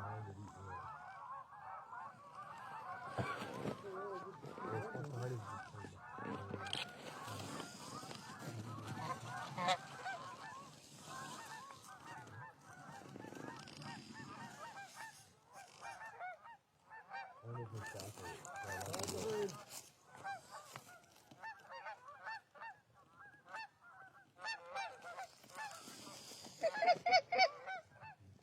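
Many geese honking, overlapping calls that run on and off, with a burst of loud, rapid honks near the end.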